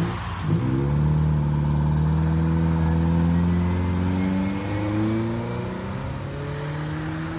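Nissan Figaro's small turbocharged four-cylinder engine pulling away. The engine note rises steadily, dips briefly about two-thirds of the way through as the automatic shifts up, then rises again and grows fainter as the car moves off.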